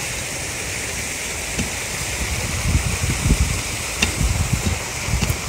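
Rake tines scratching over dry, bare soil as a patch of dirt is raked, a steady scraping hiss with irregular low rumbles in the second half.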